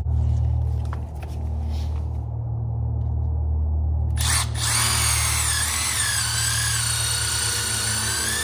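Milwaukee M12 Fuel cordless drill starting up about four seconds in and running steadily at speed with a high motor whine, over a steady low hum.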